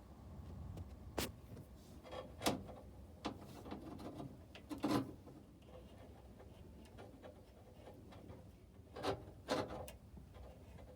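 Hand tools and metal parts clicking, knocking and rubbing as the old choke cable is being disconnected, with a few sharper knocks spread through, two close together near the end.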